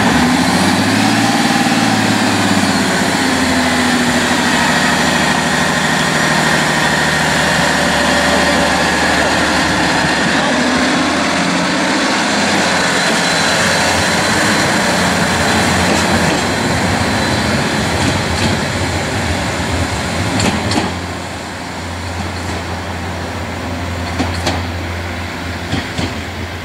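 Diesel engine of an SKPL SN82 railbus (ex-Czech class 810) running hard as it pulls away, its pitch climbing and falling back twice. About twenty seconds in it eases off, and sharp clicks of the wheels over rail joints come through near the end.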